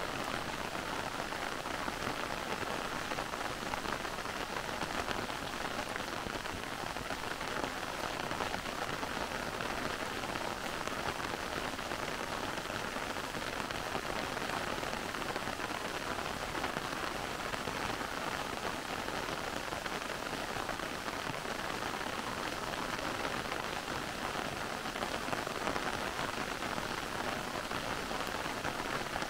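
Heavy rain falling steadily on forest foliage, an even, unbroken hiss.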